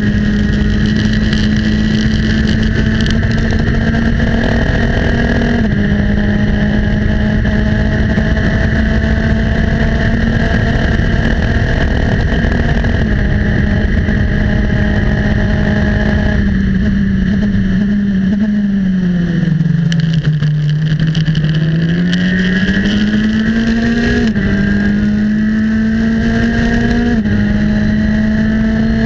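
Formula Enterprises 2 race car's Mazda four-cylinder engine at high revs, heard onboard at speed with wind rush. It holds a steady high note through two quick upshifts, then sags in pitch for a few seconds about two-thirds through as the car slows for a corner, and climbs again with two more upshifts near the end.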